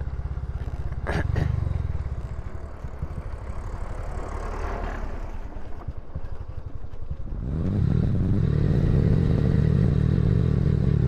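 Motorcycle engine running under way on a rough road, with a sharp knock about a second in; its note grows louder and stronger about three-quarters of the way through as the rider opens the throttle.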